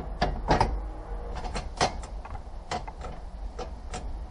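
Hands working parts inside a car's stripped-out dashboard: a run of about ten irregular clicks and knocks, loudest about half a second in and just under two seconds in.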